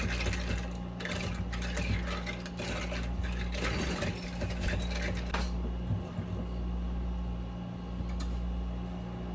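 A spoon stirring quickly in a cup, a rapid run of light clinks that stops about five and a half seconds in, dissolving sweetened condensed coconut milk into a drink. A steady low hum runs underneath.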